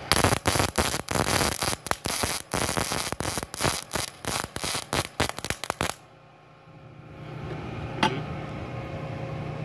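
Multipro MIG welder arc burning solid wire under CO2 shielding gas: a loud, rapid crackle with brief breaks, which stops suddenly about six seconds in. A single click follows about two seconds later.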